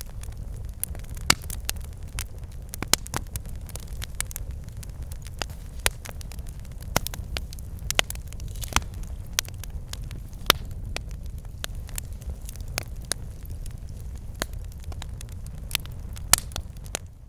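Campfire burning: wood crackling with frequent, irregular sharp pops over a steady low rumble. The sound fades out at the very end.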